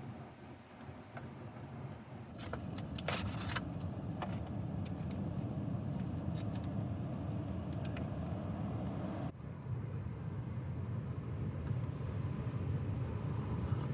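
Strong wind rumbling in uneven gusts, with a few light clicks and knocks a few seconds in.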